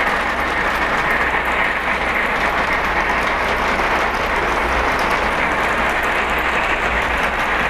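Lionel O-gauge model trains running on Fastrack, a steady rushing noise of wheels on the track with a low motor hum underneath.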